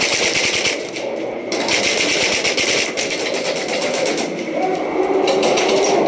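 Airsoft guns firing on full auto: a rapid stutter of many shots a second, in long bursts with short gaps between them.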